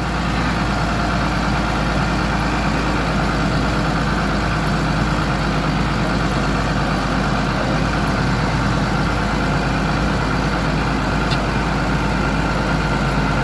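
New Holland TM140 tractor's six-cylinder diesel engine running steadily under way, heard up close from the driver's seat.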